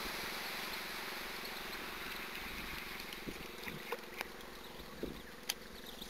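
Open-air wind hiss on the microphone, slowly fading, over a faint steady hum. From about three seconds in, a few sharp clicks and short chirps.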